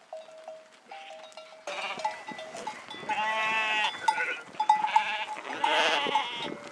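Mixed flock of sheep and goats bleating as it moves, with a long wavering bleat about three seconds in and another near the end, and shorter calls between.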